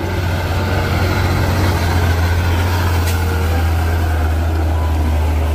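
Diesel engine of a Hino three-axle cargo truck running as the truck drives slowly over a gravel road: a steady, heavy low drone with a rough noise over it.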